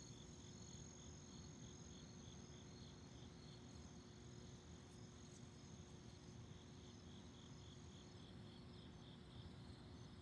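Faint chorus of night insects, crickets among them: one keeps up a steady high trill that stops about eight seconds in, while another chirps evenly about two or three times a second, over a low background rumble.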